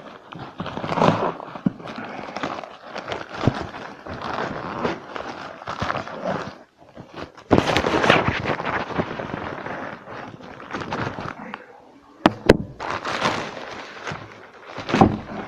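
Product packaging being handled and opened: irregular crackling and rustling with scattered knocks, and a couple of sharp clicks about three-quarters of the way through.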